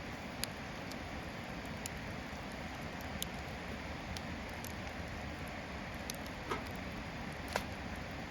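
Wood fire crackling in a handmade 18-litre square-can (itto-can) fire pit, with scattered sharp pops, over the steady rush of a river.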